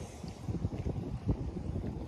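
Wind buffeting the microphone: an uneven low rumble in gusts, growing louder about half a second in.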